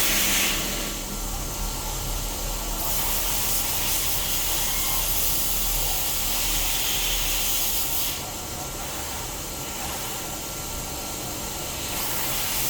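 CNC machine cutting side holes in an aluminium part: steady machining noise under a high hiss that grows stronger twice.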